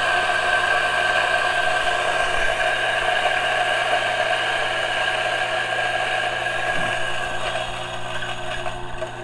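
DF64 single-dose coffee grinder, with 64 mm flat burrs, running steadily as it grinds an 18 g dose of beans. The motor tone fades slightly near the end.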